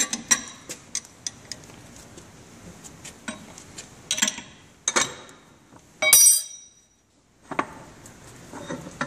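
Steel parts clinking and clattering as a machine vise is loosened and a mild steel sleeve is lifted out of its jaws. A series of sharp metallic clicks includes one loud, ringing metal-on-metal clink about two-thirds of the way through.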